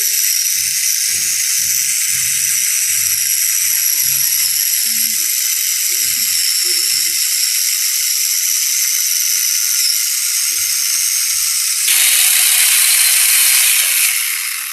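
Angle grinder fitted with a 12-inch chainsaw attachment running at speed, the motor whining and the chain running on the bar. About twelve seconds in the sound deepens and gets louder, then it starts to fall away near the end.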